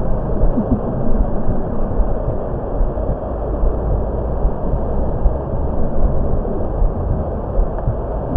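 A steady, low rumbling noise bed with no clear breaths, beats or tones in it.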